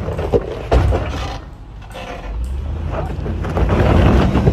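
Toyota Land Cruiser V8 rumbling low as it crawls over rocks, with a couple of sharp knocks under a second in. The engine grows louder toward the end as it climbs.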